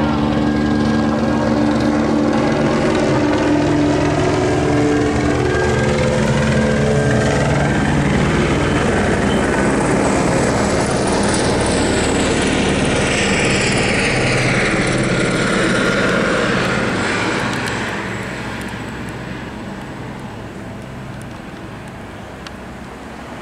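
LAPD police helicopter circling low overhead: steady rotor beat and turbine whine, with a slow sweeping shift in tone as it moves. The sound grows fainter about three-quarters of the way through.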